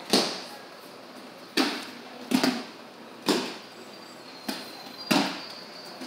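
Bodies and slapping hands hitting a martial-arts floor mat in breakfalls: sharp thuds with a short room echo, about six of them a little over a second apart, one fainter than the rest.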